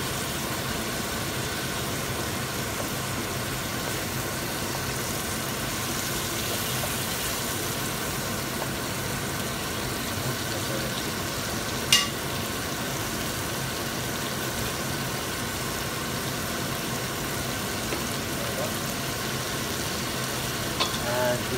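Herring fillets frying in butter in a wok over high heat: a steady sizzle, with one sharp knock about twelve seconds in.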